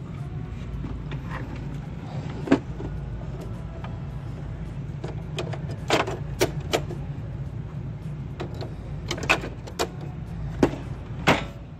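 Sharp plastic clicks and knocks of ink cartridges being handled and snapped into the HP Envy Photo 6255's print carriage, scattered and coming in small clusters, over a steady low hum.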